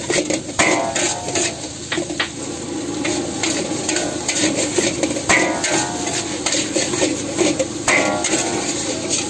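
A metal spatula scraping and clanking against a steel wok as rice is stir-fried. Busy scrapes and knocks run throughout, with a few louder, ringing strokes.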